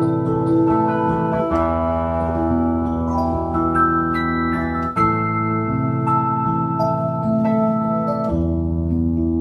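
Electronic keyboard on an organ-like sound playing held chords over a bass line, changing chord about every three seconds.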